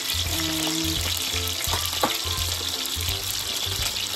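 Steak sizzling as it fries in a pan, a steady hiss, over background music with a regular low pulse. A single sharp click about two seconds in.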